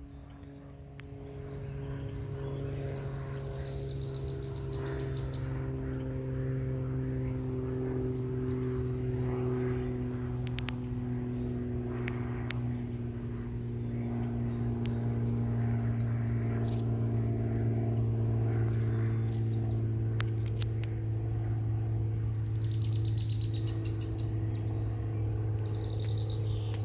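A steady, low engine drone whose pitch slowly falls over some twenty seconds as it grows a little louder, with birds chirping now and then above it.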